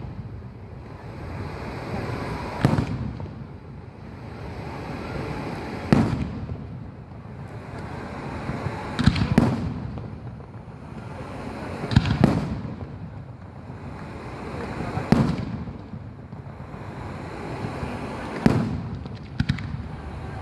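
Aerial firework shells bursting overhead: a series of sharp booms about every three seconds, a few coming as quick doubles.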